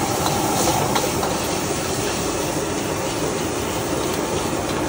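Steady rushing noise of a busy stir-fry kitchen, with a few light clinks of cookware.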